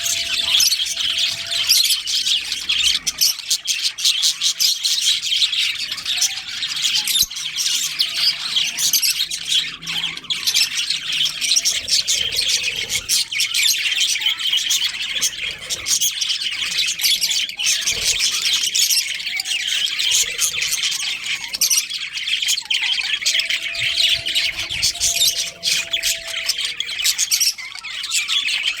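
A colony of budgerigars chattering and chirping, many birds at once in a dense, unbroken high-pitched chatter with squawks.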